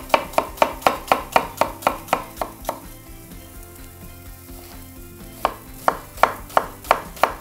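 Chef's knife chopping a red onion on a wooden cutting board: a quick, even run of blade strikes on the board at about four a second, a pause of a few seconds, then the strikes resume near the end.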